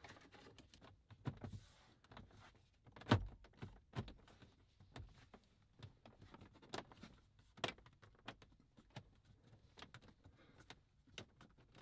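Scattered clicks and knocks as a 9-inch aftermarket head unit is connected and pressed into place in a car's dash, with the loudest knock about three seconds in.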